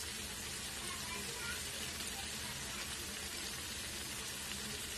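Sliced onions deep-frying in a kadai of hot oil over a high flame: a steady sizzle with no let-up. The onions are still pale, early in the frying.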